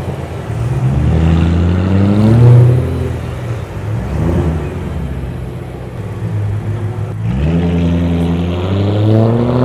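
Cars driving slowly past one after another, among them a BMW 3 Series saloon and a Honda Civic saloon. Their engines rev up in rising pulls, one in the first few seconds and another near the end.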